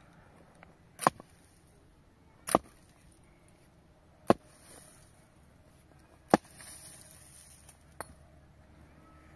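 Four sharp chopping strikes about one and a half to two seconds apart, then a lighter knock near the end.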